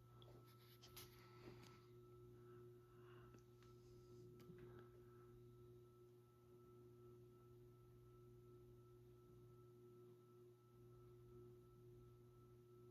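NuTone Verandah Deluxe ceiling fan running at low variable speed with a faint, steady electrical hum: the buzz typical of its variable speed control. A few faint clicks come in the first few seconds.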